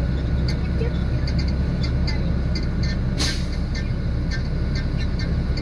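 Container lorry's diesel engine running at a steady low idle, heard from inside the cab, with scattered light clicks. About three seconds in there is a short sharp hiss of air from the air brakes.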